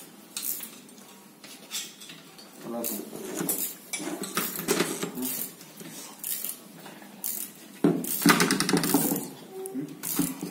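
Steel gearbox parts clinking and scraping as a circlip is fitted onto a synchromesh gearbox main shaft with circlip pliers on a metal workbench. Irregular clinks throughout, with a denser stretch of clatter about eight seconds in.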